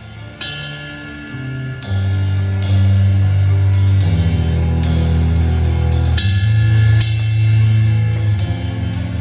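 A band running through a sound check: drum kit with a cymbal crash every couple of seconds over held bass notes that change pitch, growing louder about two seconds in.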